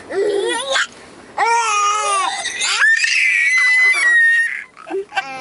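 A baby crying and fussing in short pitched wails, then a high-pitched squeal held for about a second and a half starting about three seconds in.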